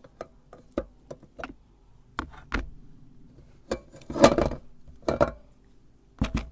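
Hard candy being crunched and clinking in a meat grinder: a string of separate sharp clicks and knocks, a denser crunching cluster about four seconds in, and a double knock near the end.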